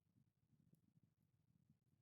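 Near silence, with only a very faint low rumble.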